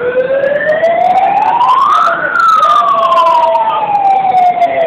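A siren winding up to a high wail over about two seconds, then slowly winding down.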